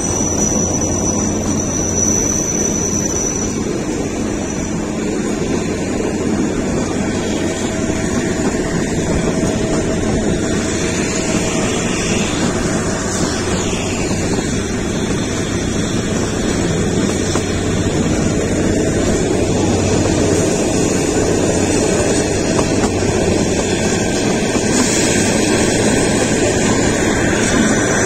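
Steady rumble and clatter of the Kalka–Shimla narrow-gauge toy train running, with a brief high gliding tone about halfway through.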